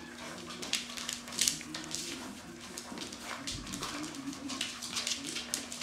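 Brown standard poodle puppies playing, with low wavering growl-like vocal sounds amid many short clicks and scuffles, over a faint steady hum.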